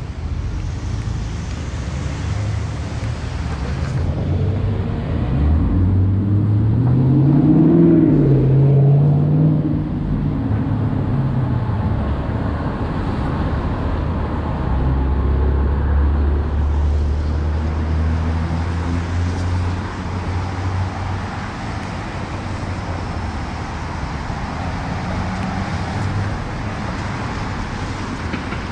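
City street traffic on a wet road: a steady hiss of tyres with vehicle engines. About six seconds in, a passing vehicle's engine rises in pitch and then falls away, the loudest moment, followed a few seconds later by a low steady engine drone that lasts several seconds.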